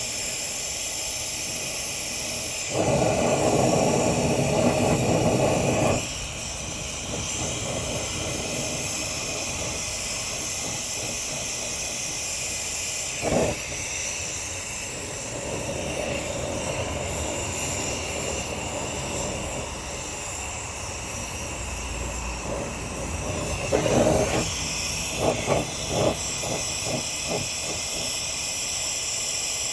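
Oxyacetylene torch flame hissing steadily as it heats a seized blade adapter held under pressure in a two-jaw puller. It runs louder for a few seconds near the start, and a few short knocks come later on.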